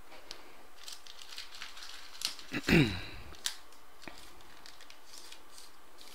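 Trading cards and their plastic holders being handled: a run of light clicks and rustles over the first half. A short, louder sound falling in pitch comes near the middle.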